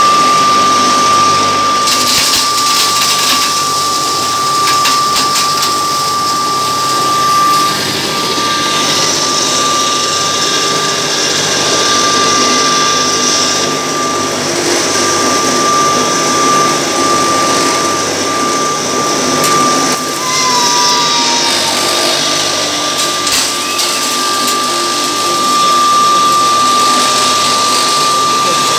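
3 HP single-phase pulverizer running at full speed with a steady high whine, grinding broken groundnut oil cake into powder with a constant rushing, rattling noise.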